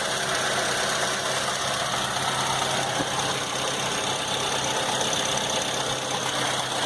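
Maruti Suzuki SX4 engine idling steadily after an overhaul for a seized connecting rod, running smooth with no knocking or rough noise.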